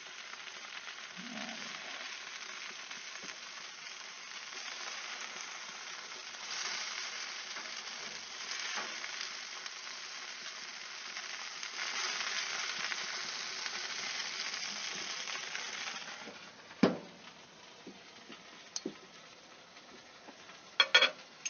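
Bacon-wrapped chicken sizzling on a Broil King barbecue grill as tongs turn the pieces. About 17 seconds in the sizzle drops away and a single sharp clack follows as the grill lid is shut, then a few light clicks near the end.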